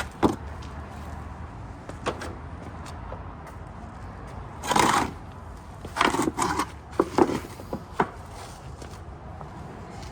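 Hand-tool work on a motorcycle carburetor intake: sharp knocks and clicks, with short rubbing noises about five seconds in and again between six and eight seconds in, as a small flathead screwdriver works the rubber intake boot over the carburetor opening.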